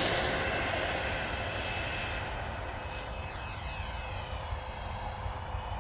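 Durafly Vampire RC jet's electric ducted fan running at full power on takeoff: a steady high whine with many overtones that fades over the first few seconds as the model moves away.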